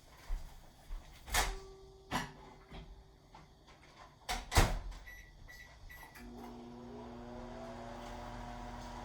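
Microwave oven being loaded and started: clicks and knocks as the door is opened and shut, the loudest a clunk about halfway through, then three short keypad beeps, and the oven starts running with a steady hum that rises briefly in pitch as it spins up.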